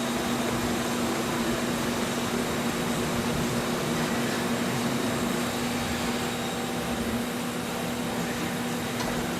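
A steady mechanical hum and whir with a constant low tone, unchanging throughout.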